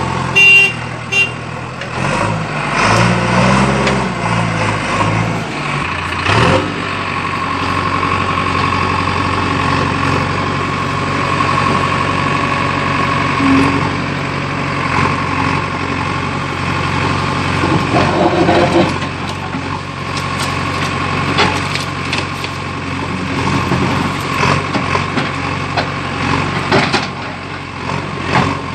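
A heavy vehicle's engine idling steadily. Its pitch wavers for a few seconds about two seconds in, then settles.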